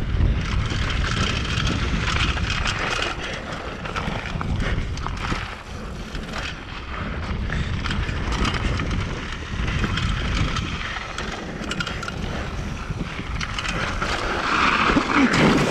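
Mountain bike riding fast down a dry, dusty dirt trail: tyres rumbling over loose dirt with wind rushing over the microphone, and the bike clattering over bumps.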